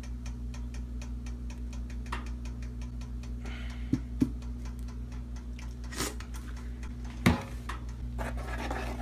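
A steady electrical hum and a fast, even ticking, with a few sharp knocks as a plastic dressing bottle and a slotted metal spoon strike a cooking pot: two quick ones near the middle and two more later, the last the loudest.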